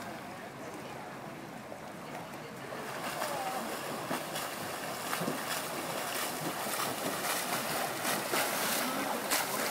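Two swimmers sprinting in a pool, their arm strokes and kicks splashing the water. The splashing grows louder from about three seconds in as they come closer.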